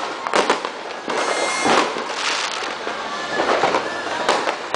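Fireworks and firecrackers going off all around: an irregular run of sharp pops and bangs, several close together, over a constant crackle.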